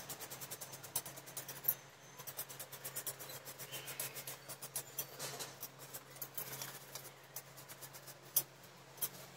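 Quick scraping or rubbing strokes on metal, several a second, with two sharper clicks near the end, over a steady low hum.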